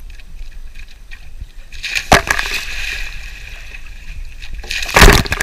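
Two children jumping off a dock into river water: a sharp splash about two seconds in, water sloshing and fizzing after it, and a second, louder splash near the end as the other child jumps in.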